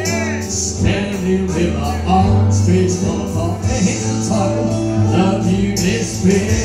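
Country song played through a PA system, a love song with a male singer's voice over the band track.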